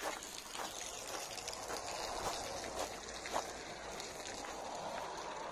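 Footsteps on a gravel path, a step roughly every half second, over a steady hiss.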